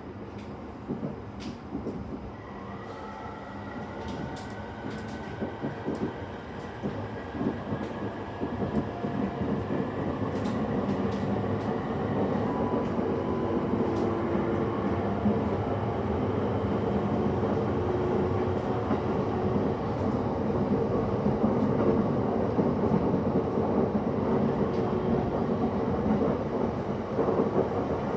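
JR East E231-series electric train pulling away, heard from inside a passenger car: the inverter-driven traction motors give a rising whine a couple of seconds in, under wheel and running noise that grows louder as the train gathers speed.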